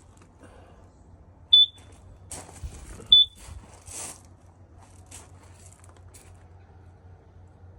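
Camper carbon monoxide detector giving two short, loud, high-pitched beeps about a second and a half apart.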